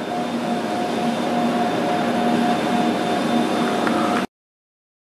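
Flour mill machinery running: a steady mechanical drone with a constant hum, cutting off abruptly a little over four seconds in.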